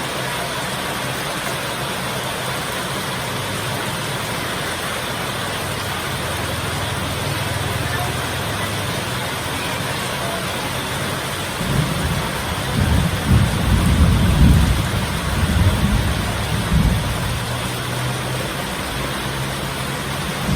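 Heavy rain falling in a steady hiss. About halfway through, a roll of thunder rumbles in, swelling in several surges for around five seconds before fading back under the rain.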